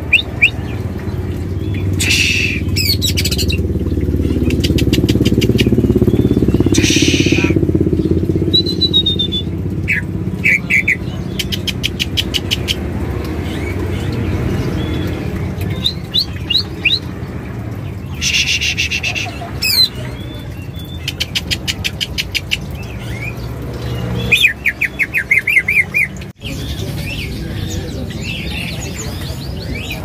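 Caged songbirds chirping and singing in short, rapid trills and rattling note runs, over a steady low background rumble. The sound drops out briefly near the end.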